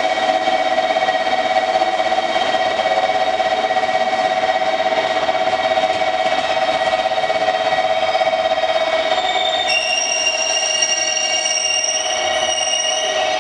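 JR Kyushu 811-series electric train creeping into the platform with a steady high electrical whine. About ten seconds in, a high brake squeal joins it as the train comes to a stop.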